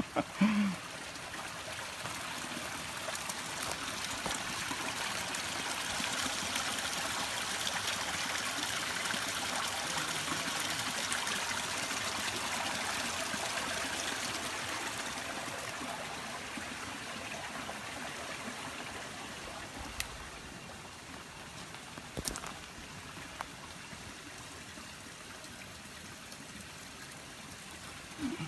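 A small stream running, a steady rush of water that swells louder for several seconds and then eases back. A couple of light knocks near the end.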